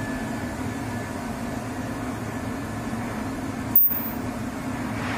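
Steady low machine hum in a workshop, with a single sharp click a little under four seconds in.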